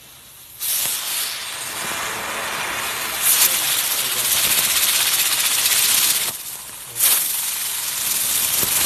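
Small ground firework hissing as it spews a jet of sparks. The hiss starts abruptly about half a second in, grows louder, breaks off briefly after about six seconds and starts again sharply a moment later.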